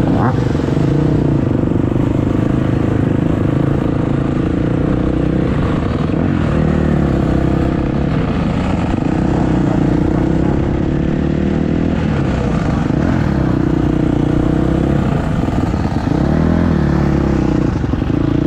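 Motocross bike engine running at low speed while the bike rolls along, the revs dipping and rising a few times with the throttle, the pitch sagging and climbing back especially in the latter part.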